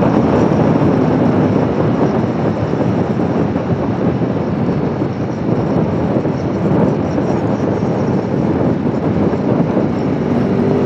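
Wind rushing over the microphone at road speed, with an Aprilia Tuono V4 1100's V4 engine running beneath it. The engine note starts to climb near the end.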